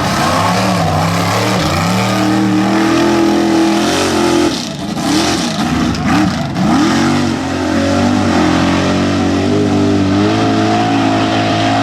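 Mega truck engine revving hard under full throttle, its pitch climbing and falling. Around the middle it swoops up and down several times in quick succession, then holds high revs.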